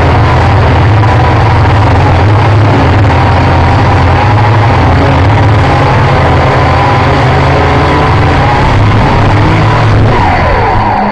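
Quadcopter's electric motors and propellers whining, heard close from on board, over a loud rush of air. The whine wavers in pitch as the throttle changes, and near the end it slides down in pitch as the motors slow while the quad comes down into the grass.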